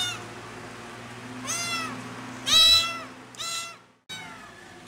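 Young tabby kitten meowing loudly: three high meows, each rising then falling in pitch, the middle one the loudest. It is crying for its mother.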